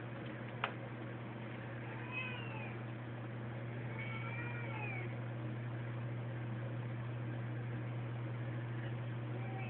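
A cat meows twice, short calls that bend up and down in pitch, about two and four seconds in, with a fainter call near the end. A sharp click comes just before them, and a steady low hum runs underneath.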